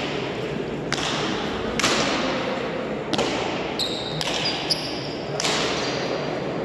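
Hard pelota ball being struck by bare hands and hitting the frontón's front wall in a rally: about five sharp cracks, roughly a second apart, each ringing with echo.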